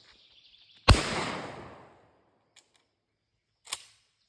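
A single shotgun shot about a second in, its report dying away over about a second, followed by a faint click and then a sharper click near the end.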